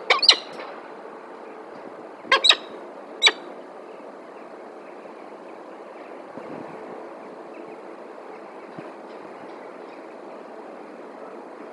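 A peregrine falcon on the metal grating of a nest ledge makes a handful of short, sharp sounds in the first three and a half seconds, two of them close together. Under them runs the steady distant hum of town traffic.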